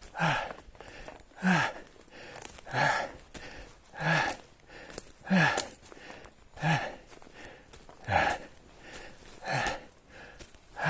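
A man breathing hard from exertion: a loud voiced breath out about every second and a half, each one dropping in pitch, with quieter breaths in between. He is winded from running and climbing the steep trail.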